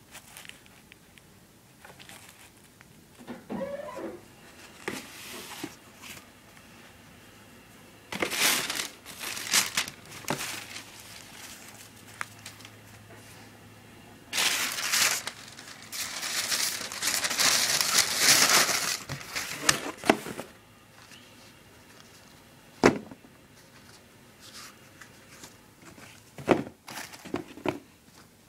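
Tissue wrapping paper crinkling and rustling in two long bursts as new running shoes are unpacked, with a few sharp knocks near the end as the shoes and box are handled.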